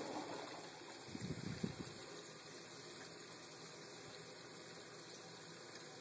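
Faint, steady rush of water flowing through the household water lines as the well pump runs and the system fills and builds pressure, with a short cluster of louder sounds about a second in.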